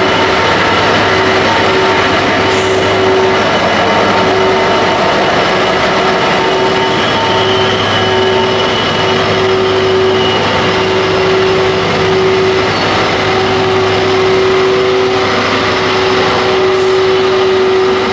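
Steam locomotive standing at the platform: a loud, steady hiss and rush of steam with a constant hum that pulses faintly.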